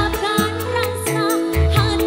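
Live dangdut band music: a female singer sings a wavering, ornamented melody into a microphone over deep bass notes and keyboard, with a quick, steady percussive beat.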